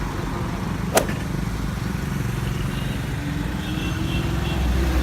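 Steady street traffic rumble from passing cars, with a single sharp click about a second in.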